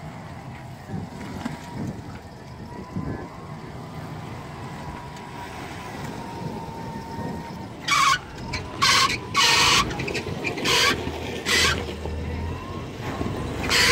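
Toyota Land Cruiser's engine running at low revs as the truck crawls over rocks, with a faint steady whine through the first half. About eight seconds in, a run of five short, loud hissing noises comes in quick succession.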